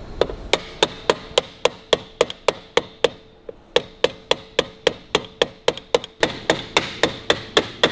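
Small hammer tapping lightly and steadily on the metal rim of a 1941 Harley-Davidson WL speedometer resting on a steel bar in a vice, rolling the lip over to hold the glass. About three or four taps a second with a brief pause around three seconds in, each with a faint metallic ring.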